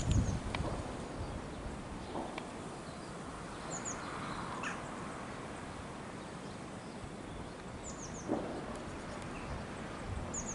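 Small birds chirping in short, high, falling calls, a few at a time several times over, above a steady outdoor hiss. A low rumble sounds at the start and dies away.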